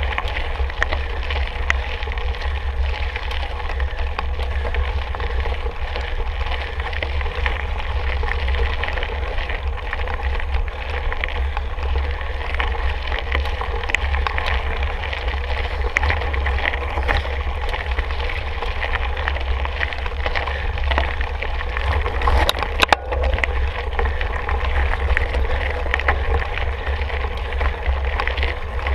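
Mountain bike riding over a rough trail: tyres crunching and the bike rattling with many small clicks, under steady wind rumble on the microphone. One sharp knock a little over three-quarters of the way through.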